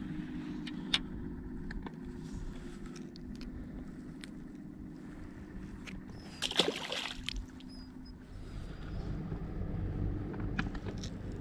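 A boat motor's steady low hum, with scattered light clicks and knocks from handling a caught crappie and the rod. There is a short, louder rushing noise about six and a half seconds in.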